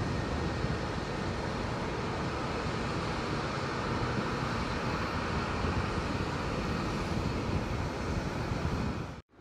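Steady noise of jet airliners on an airport apron, an even rushing hum with no distinct events, which cuts off suddenly near the end.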